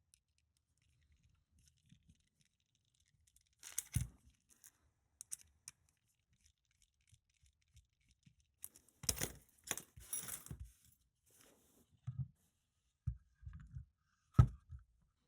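Small metal lock parts and tools handled on a workbench while a pin-tumbler lock is taken apart: scattered light clicks and scrapes. A sharp knock comes about four seconds in, a burst of scraping and clicking comes near ten seconds, and a sharp click comes near the end.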